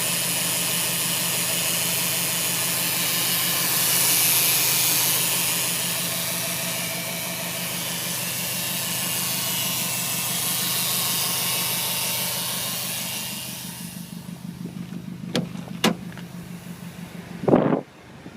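Subaru STI's air conditioning giving a loud steady hiss over the engine idling, a noise the owner takes for a broken AC. The hiss cuts off about fourteen seconds in, leaving the idle, followed by two sharp clicks and a loud thump near the end.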